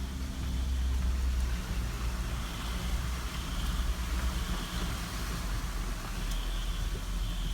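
A car running at low speed, heard from inside: a steady low engine and road rumble.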